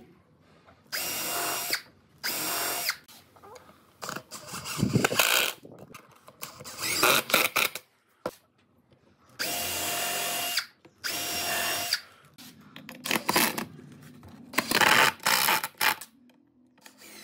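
Cordless drill running in repeated short bursts of about a second each while drilling into pine boards. Near the end, a cordless impact driver drives a screw into the frame.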